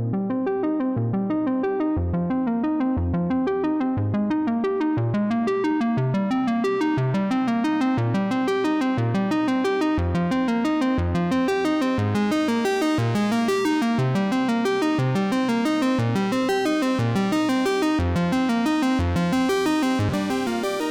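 Background music: an electronic synthesizer and keyboard track with a steady bass note about once a second.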